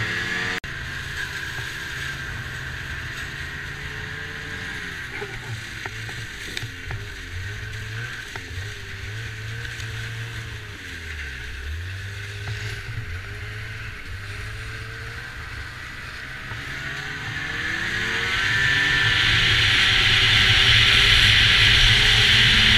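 Snowmobile engine running under way, its pitch rising and falling with the throttle. It slows briefly about halfway, then speeds up over the last few seconds, its pitch climbing and growing louder along with a rising rushing hiss.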